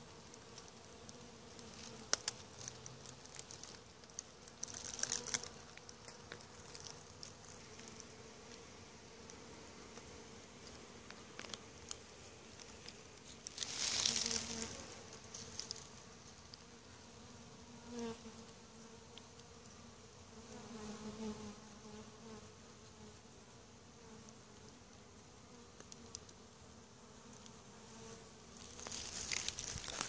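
Honeybee swarm buzzing as a steady low hum with an overtone above it. A few brief hissy noises cut across it, the loudest about halfway through.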